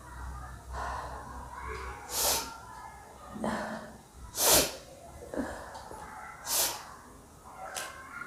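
A person's short, sharp, breathy bursts, four of them about two seconds apart, with small throat sounds between.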